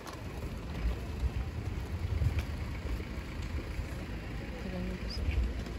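Outdoor street ambience: an uneven low rumble of wind and traffic, with faint voices in the background about five seconds in.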